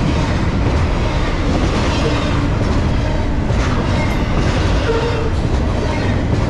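Double-stack intermodal freight train passing close: a steady, loud rumble and rattle of loaded container well cars rolling on the rails, with a few faint knocks from the wheels and cars.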